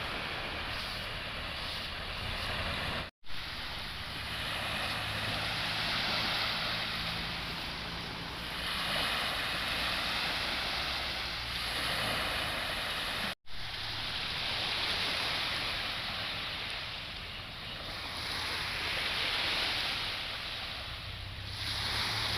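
Sea waves breaking and washing up a sandy beach, the surf swelling and easing every few seconds, with wind buffeting the microphone. The sound drops out briefly twice.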